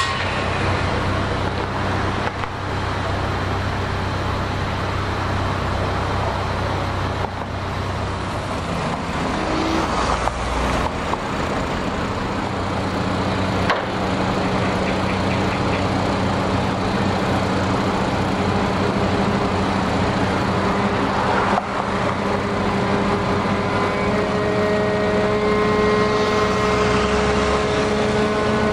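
Steady drone of construction machinery engines running, with a low, even hum beneath a noisy rush. Several steady higher tones join in for the last few seconds.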